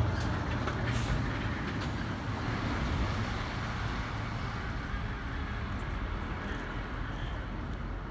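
Steady low rumble and hiss of outdoor background noise, with a few faint rustles about a second in.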